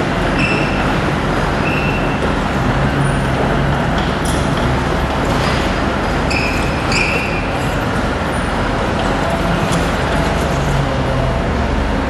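Hydraulic tailgate pump running steadily with a low hum as the van's rear tailgate lifts. A few short high-pitched tones sound over it, twice close together between six and seven seconds in.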